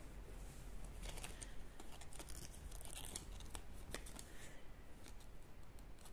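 Shirts on hangers being pushed along a clothing rack by hand: fabric rustling, with a string of light clicks and scrapes from the hangers.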